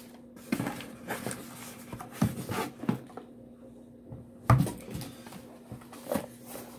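Cardboard packaging being handled: rustles, scrapes and knocks as a printed cardboard ink-kit box is lifted out of a shipping carton and turned over, the loudest knock about four and a half seconds in.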